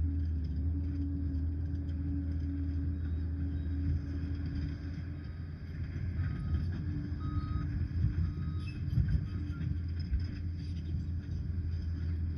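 Liebherr PR 746 crawler dozer's diesel engine running steadily under work. It eases off briefly near the middle, and a few low knocks follow about two-thirds of the way through.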